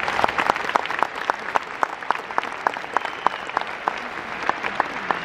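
Stadium crowd applauding, with one clapper close by standing out in steady claps about three to four a second.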